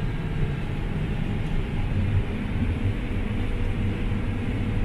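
Combine harvester running steadily, a constant low rumble with mechanical noise as heard from inside the cab.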